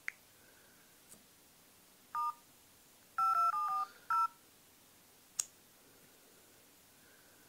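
LG L40 D170 smartphone's dialer playing keypad touch-tones (DTMF beeps) as digits are tapped in: one beep, then a quick run of four, then one more. A few short clicks come before and after.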